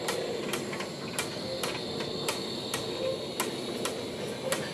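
Narrow-gauge locomotives at close range: a steady high hiss with sharp metallic clicks about twice a second over a low rumble.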